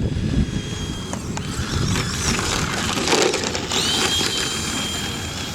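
Electric RC monster truck's motor whining high, its pitch dropping and climbing with the throttle, while the tires crunch over dirt.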